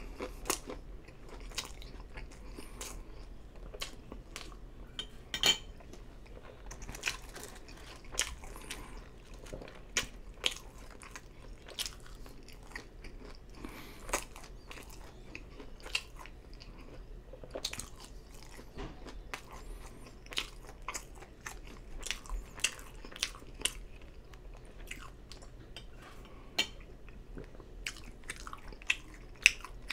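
Close-miked chewing of a mouthful of fast-food sliders and fries, with irregular wet mouth clicks and smacks, several a second at times.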